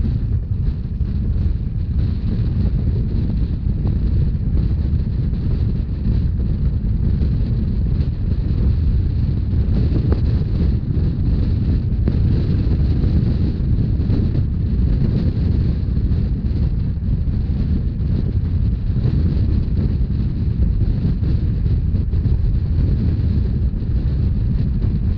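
Steady wind rush buffeting the microphone over the low rumble of a narrow-gauge train running along the rails.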